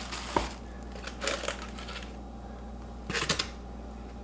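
Plastic bag wrapping rustling in two short bursts as a clear glass pendant-light shade is pulled out of it, after a sharp click about half a second in.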